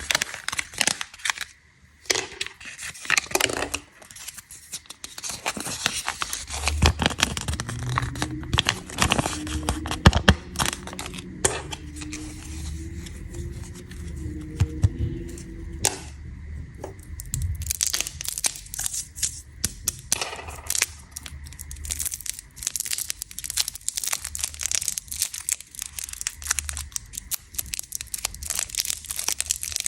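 Candy wrappers being crinkled and torn open, with many sharp crackles and taps throughout and a wavering squeak for several seconds in the middle.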